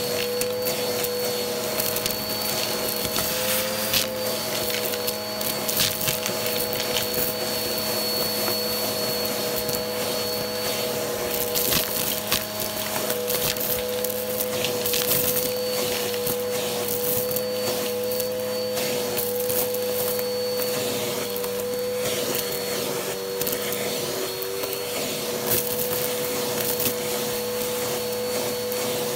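Vacuum cleaner running steadily with a crevice tool on carpet, sucking up scattered sequins and glitter. The debris rattles up the tool as many short clicks and crunches over the motor's steady whine.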